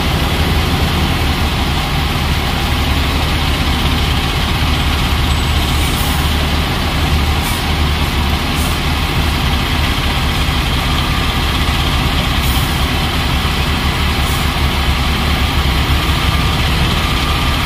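LiuGong 848H wheel loader's diesel engine running steadily under load as it raises its bucket of coal to tip into a truck, with a heavy truck engine idling alongside.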